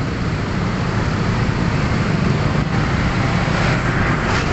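Heavy, slow-moving street traffic, mostly motorcycles with some cars: a steady mix of many engines running and road noise.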